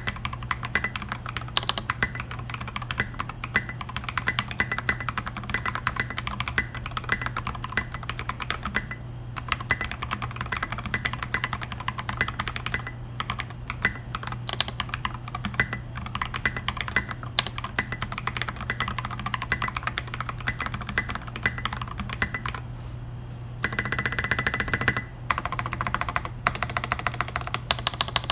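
Continuous fast typing on a custom tenkeyless mechanical keyboard with a brass plate, Naevy switches and SA-profile keycaps. The keystrokes come many to the second, ease off briefly near the end, then pick up again in a dense flurry.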